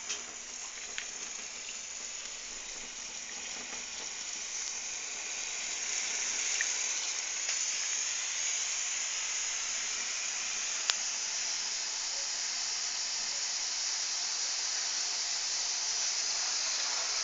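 A steady hissing rush from leak-repair equipment forcing flow through plumbing pipes. It grows louder over the first several seconds, then holds, with a single sharp click partway through.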